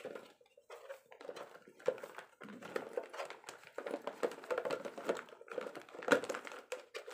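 Hands packing plastic bags, bottle parts and an ice pack into an insulated cooler bag: irregular plastic crinkling and rustling with light taps and knocks, the sharpest knock about six seconds in.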